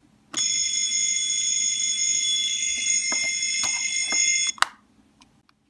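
Capsule-toy miniature fire alarm bell ringing loudly and steadily, like a real fire bell. It cuts off sharply about four and a half seconds in, followed by a click.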